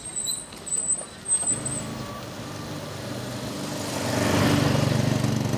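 A small motor vehicle's engine running as it comes up and passes close, growing louder to a peak about four to five seconds in and then easing off. There are a few brief high squeaks near the start.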